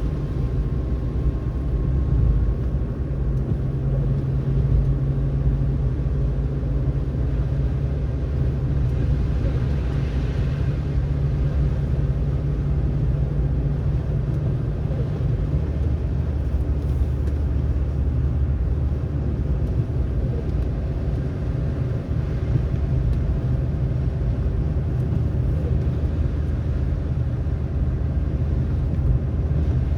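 Car driving on a snowy road: a steady low rumble of engine and tyre noise, its low drone dropping in pitch about halfway through.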